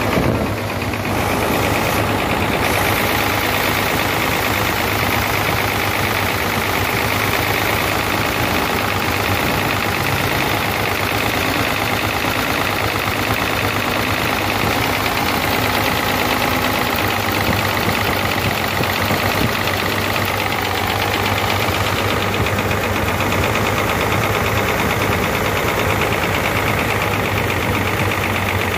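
Hino J08C inline-six turbodiesel idling steadily with a knock, which the mechanic traces to cylinders one and two of the overheated engine.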